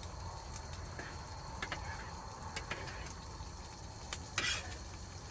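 Quiet cooking sounds at a camping gas stove: a few light taps and a brief scrape about four and a half seconds in, as from a utensil against the pan of boiling pasta, over a steady low background rumble.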